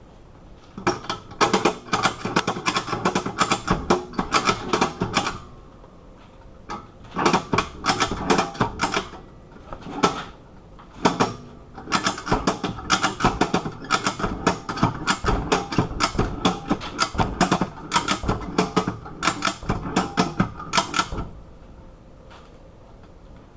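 Ratchet strap being cranked in runs of rapid clicking with short pauses, winding tension onto bolt cutter handles that are closing on a hardened padlock.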